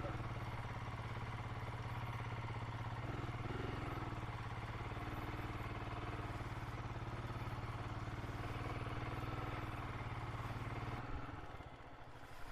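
Royal Enfield single-cylinder motorcycle engine running steadily at low revs, then dropping away about eleven seconds in.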